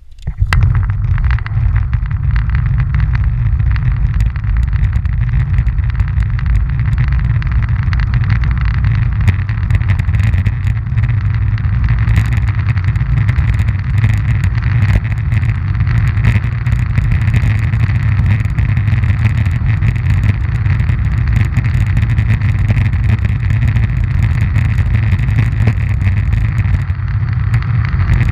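Wheels rolling fast over coarse, gritty asphalt, heard from very close to the surface: a loud, steady low rumble with a dense crackling rattle on top. It starts suddenly as the rolling begins.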